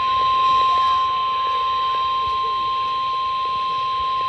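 NOAA Weather Radio warning alarm tone, the 1050 Hz single tone that switches on weather alert receivers, sounded here as part of the weekly test. One loud, steady, unwavering beep starts abruptly and holds without a break.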